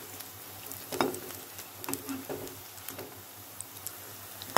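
Urad dal vadas deep-frying in hot oil in a kadai on a low flame, a steady sizzle. A perforated slotted spoon knocks lightly against the pan a few times, once about a second in, twice around two seconds, and loudest at the very end.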